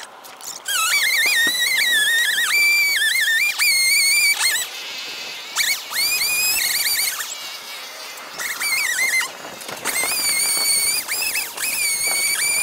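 Chainsaw running, heard in sped-up playback so that its engine comes out as a high-pitched, wavering whine that rises and falls as the throttle is worked, broken by a couple of short pauses.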